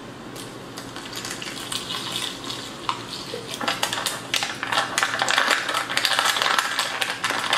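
Water poured into a foil MRE drink-powder pouch, then the pouch crinkling and crackling with water sloshing inside as it is squeezed and kneaded to mix the chocolate protein drink. The crinkling grows louder from about halfway.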